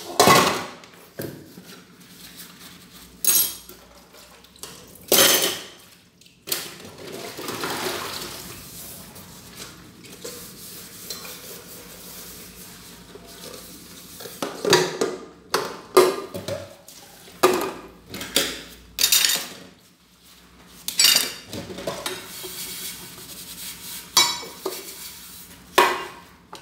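Dishes, metal pots and cutlery knocking and clinking against each other as they are washed by hand in a kitchen sink. The knocks come irregularly, more often in the second half.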